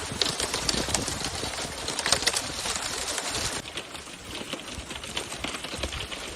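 Thin sheet ice crunching and crackling: a dense stream of small cracks and clicks that thins out a little past halfway.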